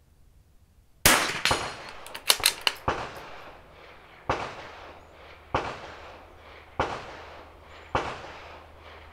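Shots from a .22 LR bolt-action rifle (Vudoo V-22): about six sharp reports roughly a second apart, beginning about a second in, each trailing off in a short echo, with a quick cluster of smaller clicks after the first shot.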